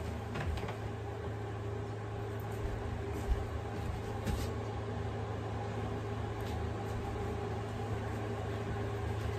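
A steady low mechanical hum, with a few soft knocks and rustles as a person gets up and moves about.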